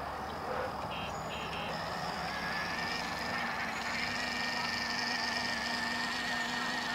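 A 12V ride-on toy Ferrari's electronic horn beeps in a few short bursts about a second in, then a steady electric whine made of several held tones sets in and carries on.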